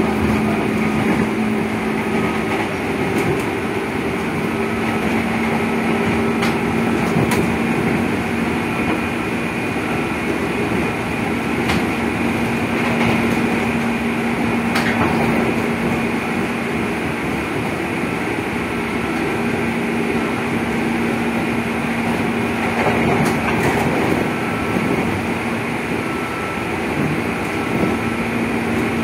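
Running noise inside the motor car of an ex-JR East 205 series electric commuter train at steady speed: a constant traction-motor and gear hum that holds its pitch over wheel-on-rail rumble, with a few short clicks from rail joints.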